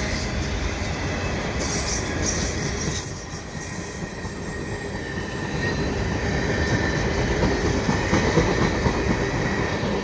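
Freight cars of a passing CN freight train rolling by: a steady rumble of steel wheels on rail, with high-pitched wheel squeal coming and going.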